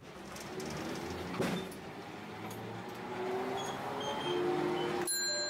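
Tosaden street tram no. 604 running along its track, heard from just behind the driver: a steady rumble of the car, with one sharp knock about a second and a half in. From about halfway on, a faint motor whine climbs slowly in pitch as the tram picks up speed.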